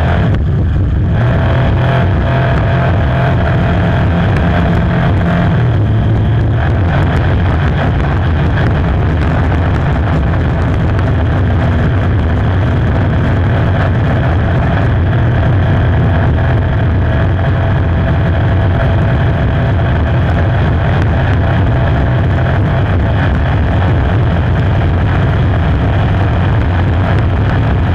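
APBA 5-litre inboard hydroplane's V8 engine running steadily at speed, heard loud from the cockpit as a constant deep drone.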